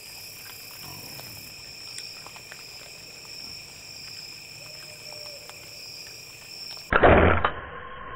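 Night insects, crickets or katydids, trilling steadily on two high pitches. About seven seconds in comes a sudden loud burst of noise: the bow shot at the feeding feral hogs, and the hogs bolting.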